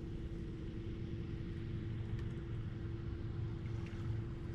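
Bow-mounted electric trolling motor humming at one steady pitch over a low rumble.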